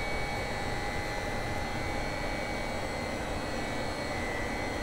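Steady drone of engine-room machinery aboard a yacht, an even hum with a few constant high tones running through it and no change in pace.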